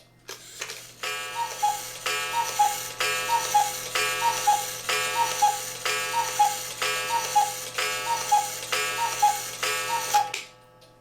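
Black Forest cuckoo clock striking the hour: about ten ringing gong strikes, each followed by the falling two-note cuckoo call, about one a second. The gong, reseated under its mounting screw, now strikes cleanly without the earlier weird sound.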